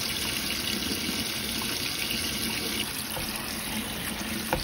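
Tap water running onto grapes in a colander, a steady splashing rush, with one small click near the end.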